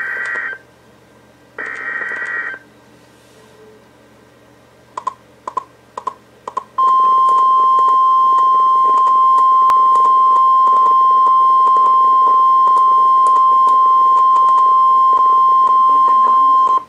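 NOAA Weather Radio emergency alert through a radio receiver, announcing a tornado warning. It opens with the end of one burst and then a second burst of buzzy SAME header data tones, then a few short beeps. Then comes the steady 1050 Hz warning alarm tone, held for about ten seconds and cutting off just before the end.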